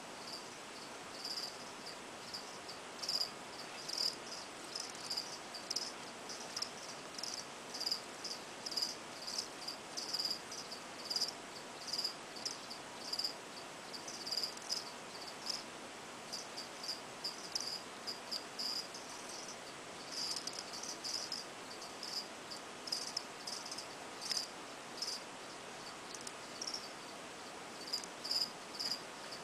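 Cricket chirping over and over, short high chirps coming irregularly about once or twice a second.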